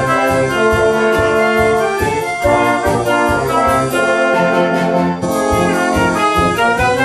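A school wind band playing a piece: brass such as euphonium and tuba, with woodwinds, over a steady drum beat.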